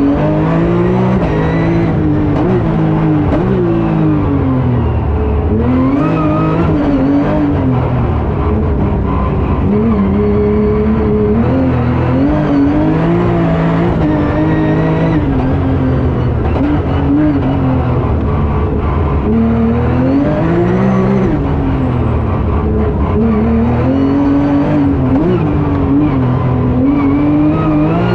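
Porsche 997 R-GT's flat-six race engine, heard from inside the cabin, revving hard and falling again and again as the car accelerates, shifts and brakes. The pitch climbs with each pull and drops sharply at the gear changes.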